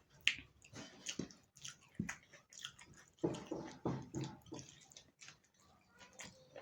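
Close-miked eating sounds: wet chewing and mouth smacks with small irregular clicks, busiest about three seconds in.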